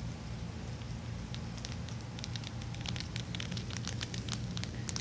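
Pet rat chewing dry food close to the microphone: a fast run of crisp crunching clicks that begins about a second in and grows denser toward the end, over a low steady hum.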